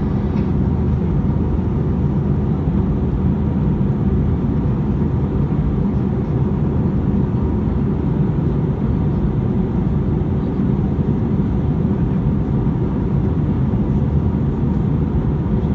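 Steady, deep cabin noise of an Airbus A320 in flight, the drone of its engines and airflow heard from a passenger seat inside the cabin.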